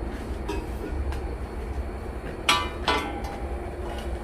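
Two sharp metallic clanks with a short ring, steel pieces struck or set down against each other, about halfway through, over a steady low engine-like rumble.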